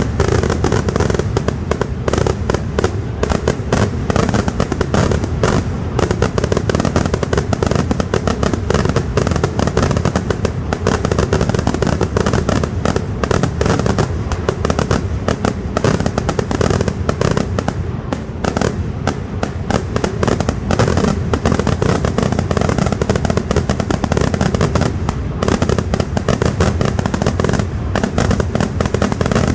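A dense, unbroken barrage of firecracker blasts from a Kerala temple festival fireworks display (vedikettu), the bangs coming too fast to tell apart and keeping up without a break.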